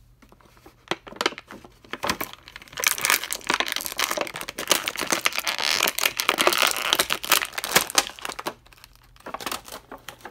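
Thin clear plastic accessory bag crinkling as hands work a small toy part out of it: dense crackling for several seconds, then a few light clicks near the end.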